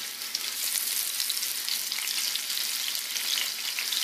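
Blackening-seasoned shrimp sizzling in hot extra virgin olive oil in a frying pan: a steady, dense crackle of tiny pops as the shrimp sear.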